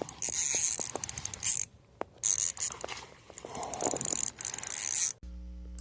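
Fishing reel being cranked against a hooked largemouth bass: rapid ratcheting clicks and whirring, with a short pause about two seconds in. It cuts off abruptly near the end, leaving a steady low hum.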